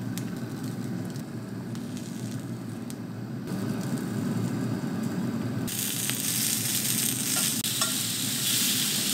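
Green peppers and tomato wedges sizzling on a hot ridged cast-iron grill pan. The sizzle turns louder and hissier a little over halfway through, with a few light clicks.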